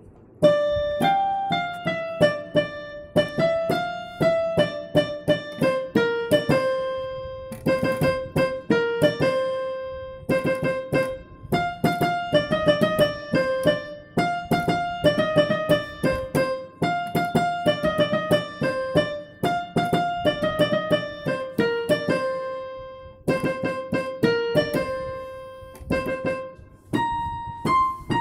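Background music: a piano or electric keyboard melody of struck notes, starting about half a second in.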